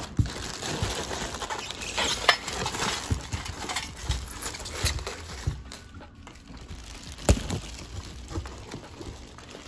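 Plastic wrapping crinkling and a cardboard box with foam inserts being handled while unpacking, with a few sharp knocks. The loudest knock comes about seven seconds in.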